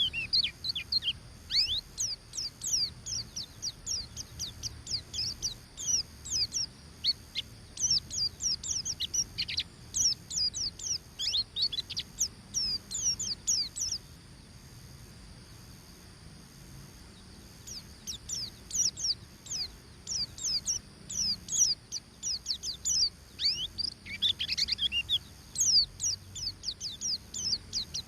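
A white-eye (pleci, buxtoni type) singing its fast, high 'ngeriwik' song: long runs of quick, sharp, falling chirps, broken by a pause of about three seconds near the middle. This is the full, hard-driving song that keepers play as a lure to provoke other white-eyes into singing.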